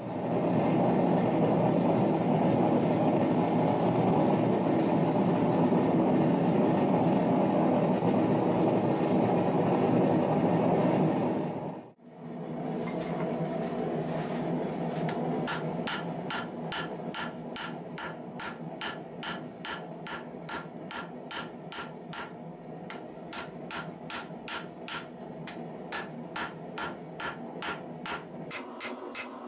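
A firebrick forge burning with a steady rushing noise. After a cut, red-hot 1084 carbon steel held in tongs is hammered on an anvil in sharp, evenly spaced blows, about two to three a second, with the forge still audible underneath.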